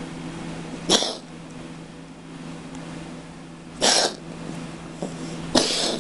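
Cat coughing with feline asthma or chronic bronchitis: three harsh hacking coughs, a short one about a second in, then longer ones near four seconds and near the end, over a low steady hum.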